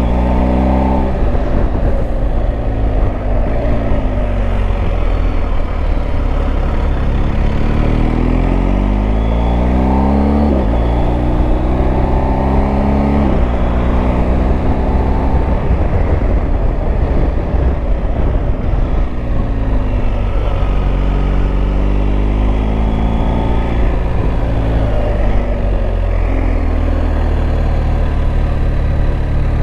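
Motorcycle engine under way on a winding road, its pitch climbing and then dropping at each gear change several times, with stretches where it falls off as the throttle closes. A steady rush of noise runs underneath.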